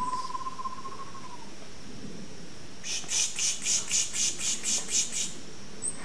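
A person pishing to call in songbirds: about ten short hissing 'pish' bursts in a quick rhythm, roughly four a second, beginning about three seconds in and stopping about two and a half seconds later, imitating a songbird's scolding alarm. A thin, wavering whistle sounds over the first second or so, and a steady high insect drone runs underneath.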